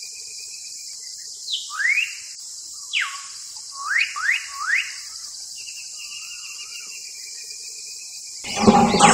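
Nature ambience: birds calling with quick rising whistled chirps and a wavering whistle, over a steady high insect drone. Near the end a much louder sound with a rich low pitch starts abruptly.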